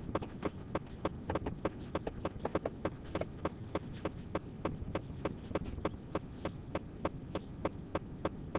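A steady run of light taps, about four or five a second, over a low steady hum.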